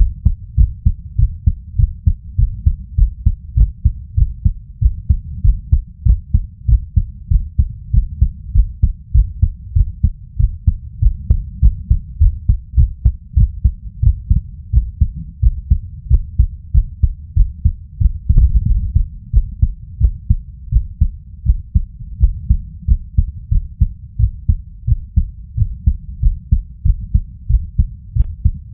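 A man's heartbeat heard through a Stemoscope digital stethoscope filtered to 70–200 Hz: an even, steady run of low, muffled lub-dub thumps, recorded while he lies down feeling anxious. A brief louder rumble comes about two-thirds of the way through.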